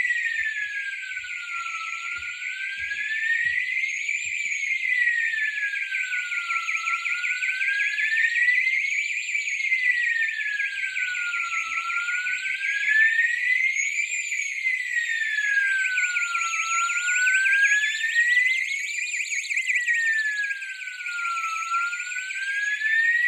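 Fire alarm notification appliances sounding in alarm during a test: an electronic siren wailing slowly up and down, about five seconds per rise and fall, over a steady harsh buzzing horn tone.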